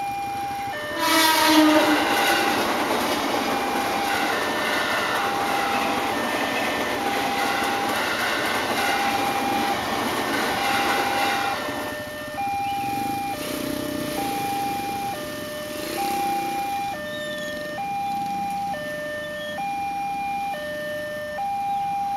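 Railway level-crossing warning alarm, an electronic signal alternating between a higher and a lower tone, each held under a second. About a second in, a train horn sounds and a passing train's rumble builds over the alarm, fading after about twelve seconds and leaving the alarm sounding on its own.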